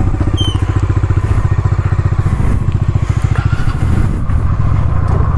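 Scooter engine running with a steady, rapid, even pulse.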